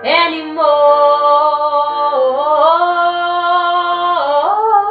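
A woman singing without words, holding long vowel notes that slide up and down between pitches in a melodic run.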